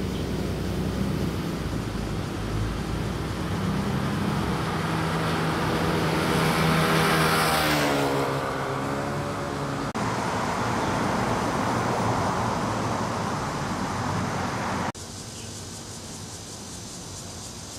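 Street traffic: motor vehicles running, with one vehicle passing close about seven seconds in, its pitch falling as it goes by. The traffic noise drops suddenly quieter about fifteen seconds in.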